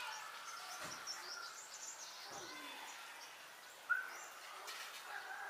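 Faint outdoor background hiss with scattered distant bird chirps, one short, slightly louder chirp about four seconds in.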